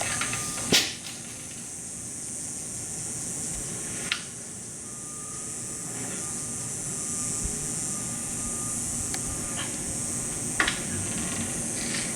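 Mitsubishi ductless mini-split indoor unit's fan blowing air, a steady airy hiss, with a few sharp clicks about a second in, around four seconds in, and near the end.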